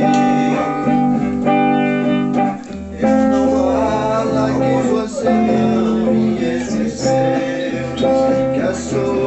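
Les Paul-style electric guitar played in chords, the chords ringing and changing every second or so.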